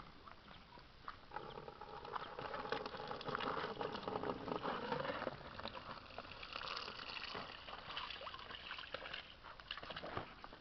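Puppies lapping and smacking at a feeding bowl: a run of small wet clicking and slurping sounds.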